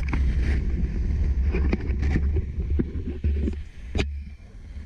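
Wind buffeting a helmet-mounted camera's microphone during a parachute descent: a steady low rumble with a few sharp knocks, easing off a little near the end.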